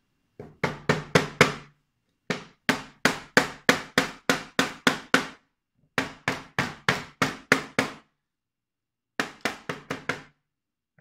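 Rubber mallet knocking a laminated chipboard panel down onto wooden dowels, driving a dowel joint closed. Four runs of quick blows, about four a second, with short pauses between runs.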